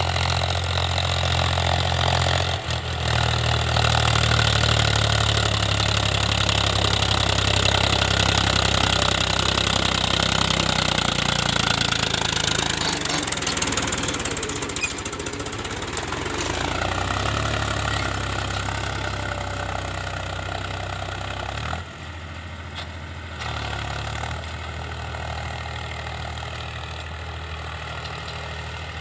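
Powertrac Euro 50 tractor's three-cylinder diesel engine running under load as it pulls a tined cultivator through ploughed soil. The sound fades somewhat in the middle and drops in level about two-thirds of the way through.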